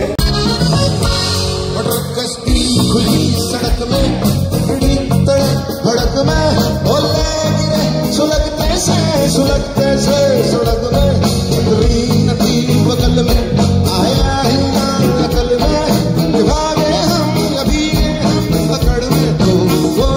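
Loud live concert music: an amplified band playing over a steady beat, with a singer's voice.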